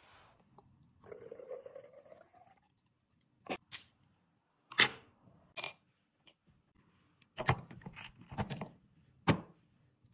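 Alcohol squirted from a plastic squeeze bottle into a glass perfume flacon, a short hissing pour whose pitch rises as the bottle fills. Then a series of sharp clicks and glassy taps as the metal spray atomizer is fitted onto the glass neck, several of them close together near the end.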